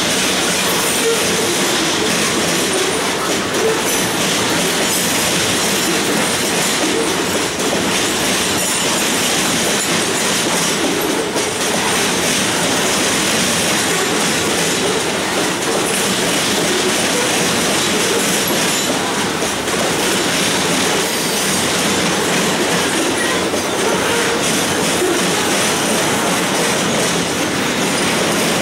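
Flatcars of a loaded continuous-welded-rail train rolling past, a steady noise of steel wheels running on the track.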